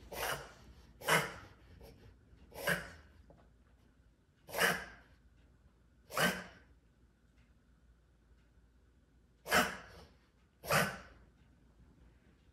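A dog coughing hard: seven single harsh hacks about one to two seconds apart, with a pause of about three seconds midway.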